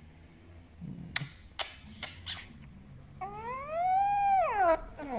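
Shiba Inu puppy yawning with a squeaky, high-pitched whine that rises and then falls, lasting about a second and a half from a little past the middle. A few faint clicks come before it.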